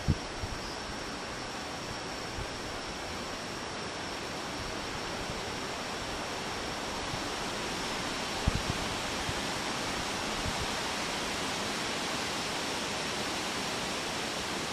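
Steady, even hiss of outdoor night background noise with a faint high steady tone running through it, and a few soft low thumps of the camera being handled, the clearest just after the start and about eight and a half seconds in.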